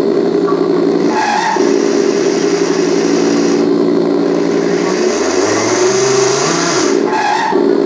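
Engine-sound simulator speaker playing a synthesized car engine note: a steady engine drone broken by a few brief pitch shifts like gear changes, with a lower dip and a rise back up about two-thirds of the way through.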